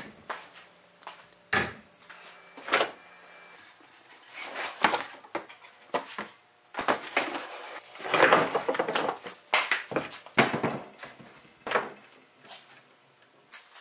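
Handling noises: a cabinet door knocking shut, a cardboard box of polishing pads opened and rummaged through, and gear knocked down onto a wooden workbench. They come as scattered knocks and short rustles, busiest about two-thirds of the way through.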